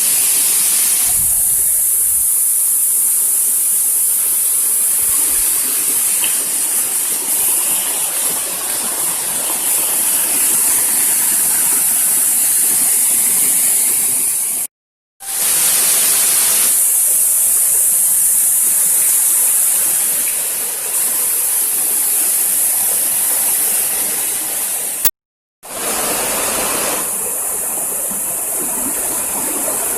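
A waterfall's falling water rushing steadily as an even hiss, broken twice by brief silent cuts.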